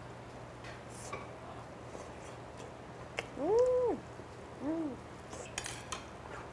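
A woman chewing a mouthful of chewy rice cake, with faint wet mouth clicks. About three seconds in she gives a closed-mouth "mmm" of enjoyment whose pitch rises and falls, and a shorter one follows about a second later.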